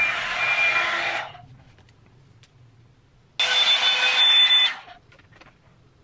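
Revlon hair dryer brush blowing air through damp hair in two bursts of about a second each. Each is a loud rush of air with a thin high motor whine, switching on and off abruptly.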